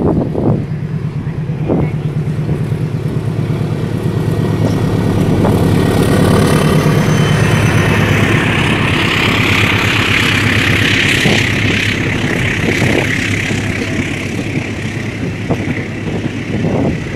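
Gajayana express train passing close by: the diesel locomotive's engine hums low as it draws level and goes past. This is followed by the steady rolling rumble and hiss of the carriages' wheels on the rails, with a few sharp clacks.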